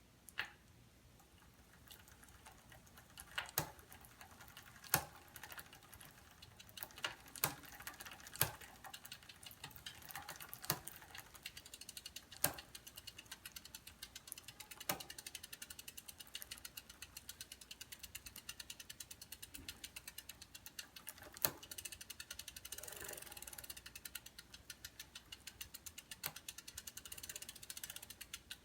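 Bicycle drivetrain turning with a rapid, even ticking, and a louder sharp click every one to three seconds: the chain clicking noise, cause not yet found.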